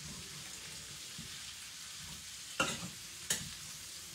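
Cauliflower and squash sizzling in a stainless steel pan as a fork stirs them, with two sharp clinks of the fork against the pan a little past halfway.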